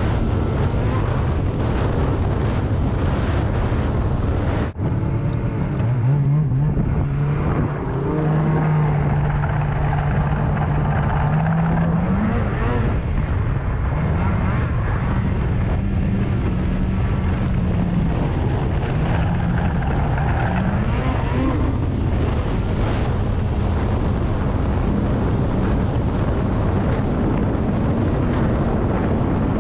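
Snowmobile engine running while being ridden, its pitch rising and falling with the throttle, under heavy wind noise on the microphone. There is a sudden short break about five seconds in.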